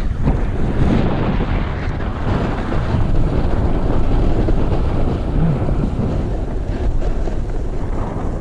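Wind rushing over the microphone of a camera worn by a rider sliding downhill on a ski slope: a steady, low rushing noise.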